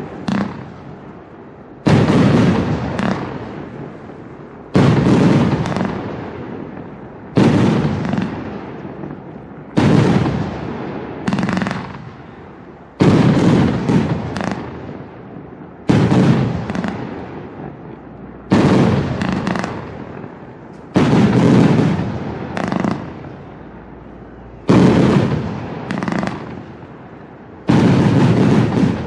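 A 100-shot, 30 mm FERMATA 100A fireworks cake firing. Loud shell bursts come every two to three seconds, each fading away over a second or two, often with a smaller bang close behind.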